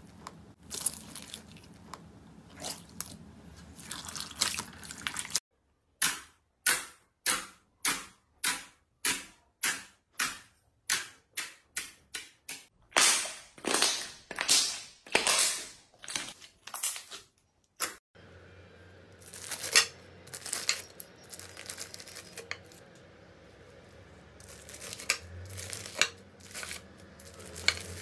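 Slime being handled: soft squelching and crackling of blue slime with foam beads, then after about five seconds a regular run of sharp, squelching pops about twice a second as a glass is pressed again and again into clear slime. From about two-thirds through come scattered crunchy crackles of bead-filled floam being squeezed in the hands.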